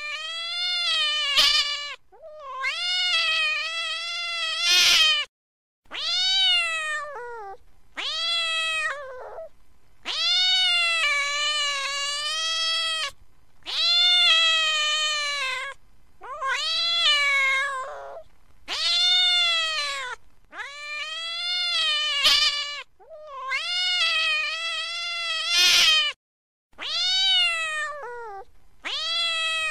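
A cat yowling angrily over and over: long drawn-out meows of one to three seconds each, rising and falling in pitch, with short pauses and a few sharp clicks between calls.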